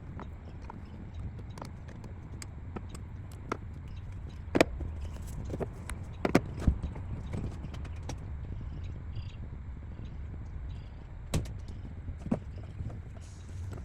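Scattered clicks, clinks and knocks of hand tools and metal parts while a 12-volt battery is fitted into a zero-turn mower, over a steady low rumble.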